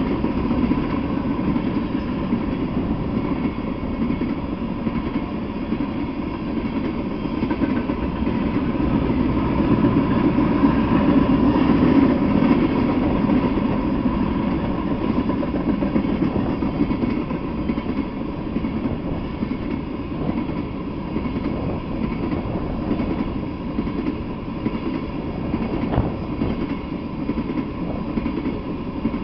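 Freight train of tank cars rolling past: a steady rumble of steel wheels on the rails, swelling a little midway, with one sharp clack near the end.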